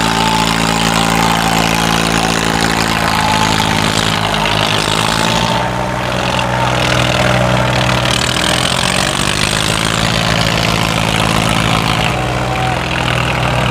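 Swaraj 744 FE tractor's three-cylinder diesel engine running hard close by while pulling under load in a tractor tug-of-war. Its pitch sags and shifts around the middle and again near the end.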